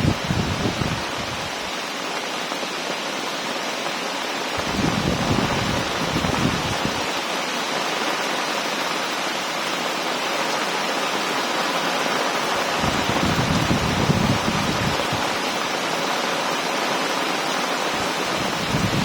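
Heavy rain pouring steadily. Deep, low rumbles swell and fade three or four times, around the start, about five seconds in, about thirteen seconds in and at the end.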